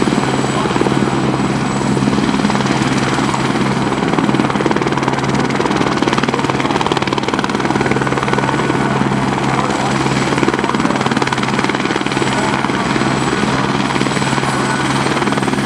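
Eurocopter AS350 helicopter running on the ground with its main rotor turning: a steady rush of rotor and engine noise with a thin high turbine whine that rises slightly near the end.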